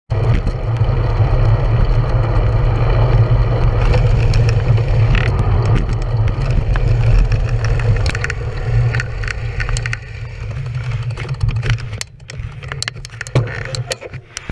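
Wind buffeting the microphone and tyre noise from a bicycle riding along a concrete path, a loud steady low rumble. After about ten seconds it fades as the bike slows, leaving scattered sharp clicks and ticks as it comes to a stop.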